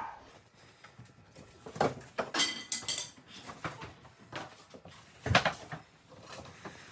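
Irregular knocks and metallic clattering from demolition work: several sharp strikes bunched about two to three seconds in, one of them ringing briefly, and another strike a little past five seconds.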